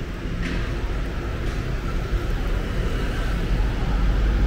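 City street traffic: cars and motorbikes passing with engine and tyre noise, a low rumble growing louder toward the end. A brief high squeak comes about half a second in.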